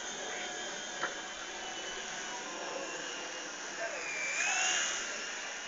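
Electric micro RC helicopter (Twister Sport) in flight: a thin, high-pitched whine from its motor and rotors. Its pitch dips and rises again and it swells in level about four seconds in.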